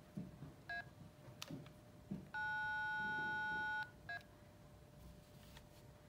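Nokia 918 analog cell phone keypad: key clicks and two short beeps, with a steady two-note touch-tone held for about a second and a half in the middle, as an emergency call is tried without service.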